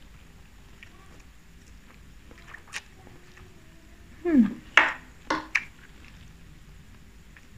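Close-miked eating of instant fried noodles: quiet chewing and small mouth clicks, then about four seconds in a short falling-pitch sound followed by a few louder wet mouth sounds in quick succession.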